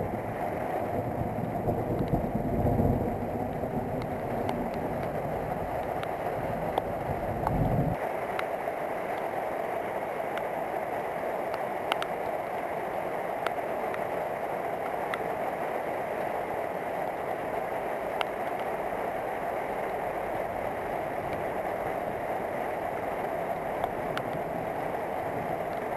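Steady rain falling during a night thunderstorm, with scattered drops ticking nearby. A low rumble underneath cuts off suddenly about eight seconds in.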